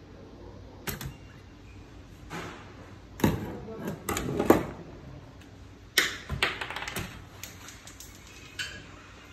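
Metal parts of a copier fusing-belt unit clicking and knocking as it is handled and a part is set down on a wooden workbench: a run of sharp, irregular clicks and clacks, loudest in two clusters around the middle.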